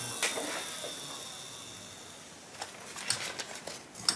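A flat-hone shear-sharpening machine is switched off: its motor hum stops at once and the spinning hone plate winds down, fading over a couple of seconds. From a little past halfway there are scattered clicks and light clatter as hard discs are handled.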